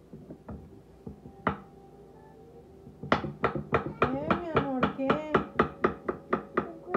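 Kitchen knife slicing a banana on a wooden cutting board. There is one knock about a second and a half in, then from about three seconds in a quick, even run of chops at roughly three a second.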